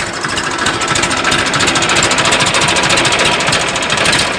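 Tractor engine running with a fast, even knocking rhythm.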